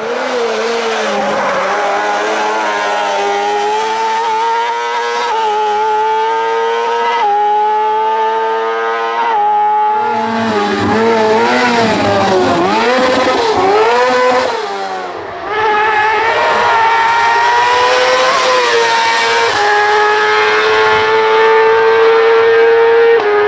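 Kart-cross buggy's motorcycle engine running at high revs under hard acceleration, the pitch stepping between gears. Through the middle the revs swing up and down quickly for a few seconds, then dip briefly about fifteen seconds in before climbing back and holding high.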